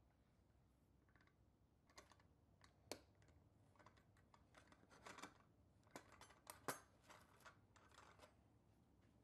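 Faint, irregular clicks and light scrapes of small parts being handled as rubber-tyred wheels are fitted onto a toy trailer's steel axle and worked with a screwdriver, the sharpest clicks about three and seven seconds in.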